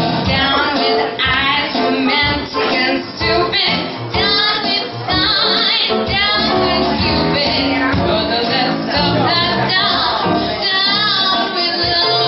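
A young woman singing a show tune into a microphone, with vibrato on her held notes, over electric piano accompaniment.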